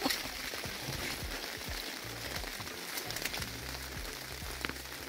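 Rain pattering on a wrecked car's body and interior: a steady hiss with scattered drop ticks. A low steady hum joins about two seconds in.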